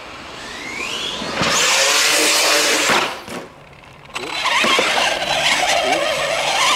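Arrma Big Rock 3S RC monster truck's brushless electric motor whining up under throttle, with a rising whine about a second in. Two loud runs of drivetrain and motor noise follow, broken by a short lull about three seconds in.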